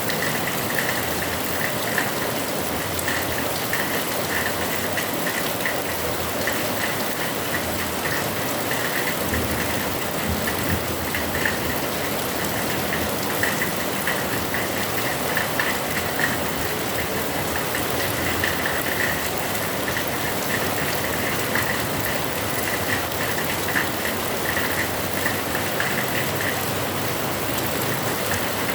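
Heavy rain falling steadily, an even hiss that never lets up.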